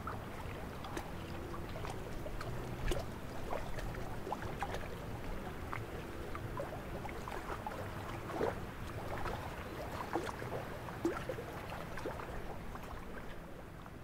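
Small wind-driven waves lapping against a lakeshore: many small irregular splashes over a steady low rumble.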